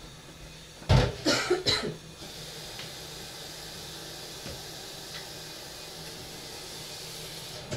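A few loud, short, sharp sounds about a second in, then a kitchen tap running steadily, water filling a water-filter jug.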